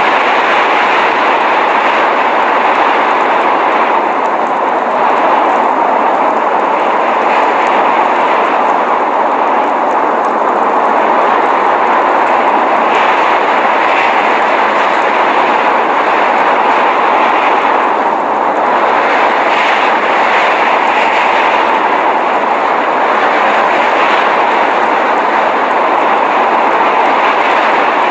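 Blizzard wind: a loud, steady rushing noise with no breaks or separate events.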